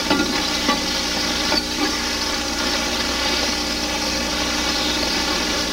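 Pickerel fillets sizzling steadily as they fry in butter and oil in a stainless-steel skillet.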